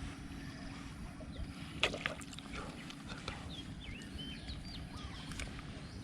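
Lakeside ambience: short whistled bird calls over a steady low background noise, with one sudden sharp sound about two seconds in.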